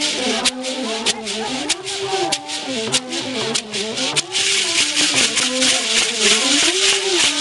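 Music: a short rising-and-falling melodic figure repeats over a rattling shaker rhythm, and the shaker gets louder about four seconds in.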